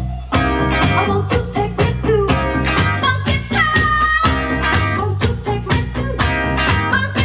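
A song with singing and guitar playing through the speakers of a vintage Airline tube console stereo, streamed over Bluetooth from a phone.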